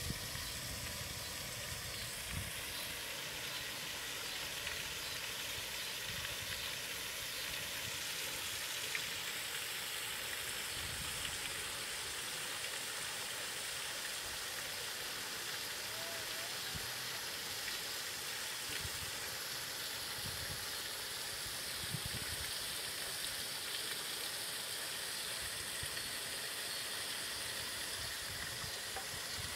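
Steady, even outdoor hiss, with a few soft low thumps.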